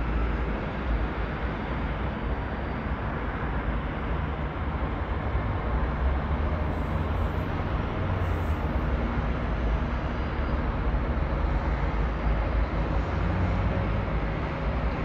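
Dense road traffic: trucks, buses and cars in slow-moving, congested traffic, a steady low noise of engines and tyres.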